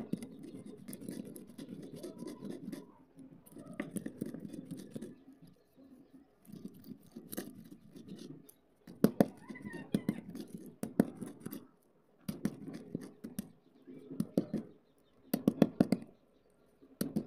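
Slate pencils being crushed and ground under a hand-held stone on a concrete floor: gritty crunching and scraping in repeated bouts, with clusters of sharp cracks as the sticks snap.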